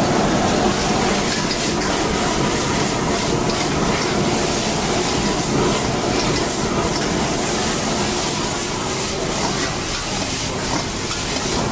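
Stir-frying in a wok over a roaring high-pressure gas burner: a steady rush of flame and sizzling, with occasional light clinks of the spatula.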